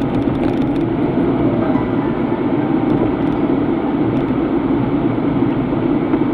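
Steady road and engine noise heard inside the cabin of a car driving along a city street.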